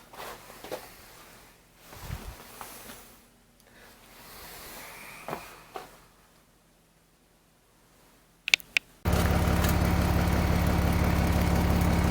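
Scattered light clicks and knocks, then two sharp clicks about eight and a half seconds in, and a Beckett oil burner on a hydronic boiler starts up suddenly and runs steadily with a low hum and rushing noise.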